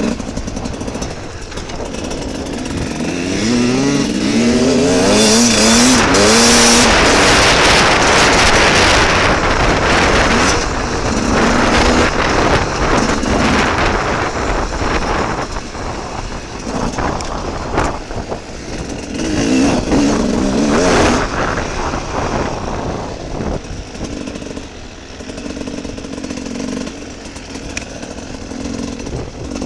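Off-road motorcycle engine heard from the rider's own bike, revving and climbing in pitch in steps as it shifts up a few seconds in, then rising and falling with the throttle over rough trail. A loud rushing of wind on the microphone covers it for several seconds while at speed.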